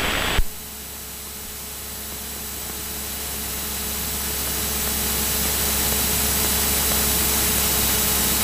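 Steady drone of a Cessna 172SP's four-cylinder Lycoming engine and the airflow, heard inside the cabin: a low hum under an even rushing hiss that starts about half a second in and slowly grows louder.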